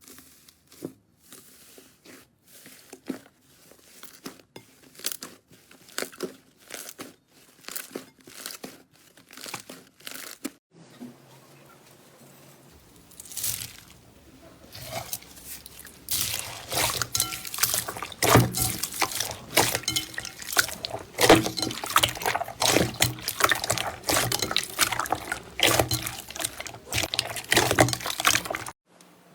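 Slime being squished and pressed by hand: separate wet pops and clicks for about the first ten seconds, then a denser, louder run of crackling and popping from about sixteen seconds in, stopping just before the end.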